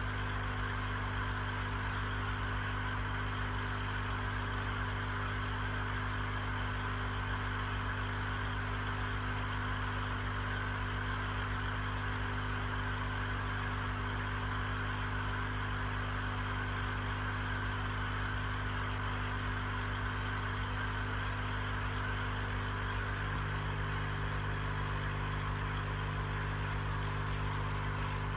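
Aquarium air pump humming steadily, with a steady hiss of bubbles from the airstone; a second low hum tone joins late on.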